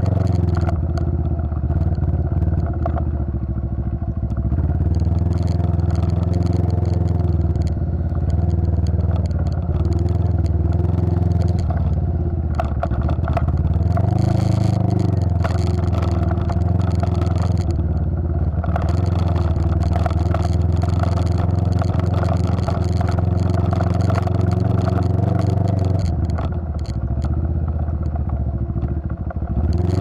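Small motorcycle engine running as the bike rides over a rough gravel road, with the rattle of the bike jolting over stones. The engine note drops and picks up again about halfway through, and eases off briefly near the end.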